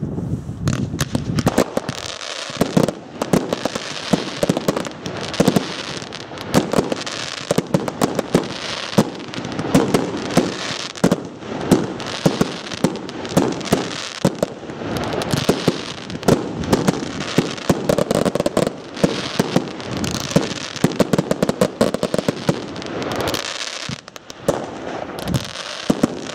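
Aerial fireworks display: shells launching and bursting overhead in a dense, near-continuous barrage of bangs and crackling, several reports a second.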